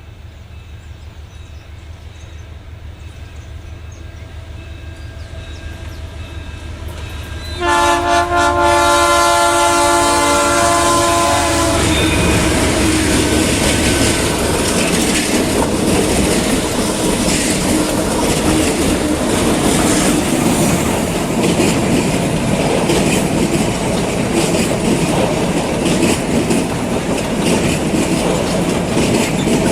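Empty freight train led by a group of diesel locomotives, approaching with a low engine rumble that steadily grows louder. About eight seconds in, a multi-note air horn sounds for about four seconds. The locomotives and empty wagons then pass close by, loud and clattering over the rail joints.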